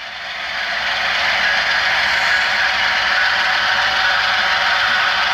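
HO-scale model intermodal train rolling past on the track: the wheels of its string of double-stack container cars give a steady rolling clatter that grows louder over the first second or two, then holds.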